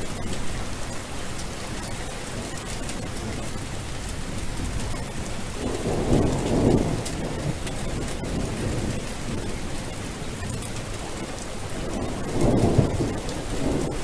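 Steady rain with thunder rumbling twice, about six seconds in and again near the end.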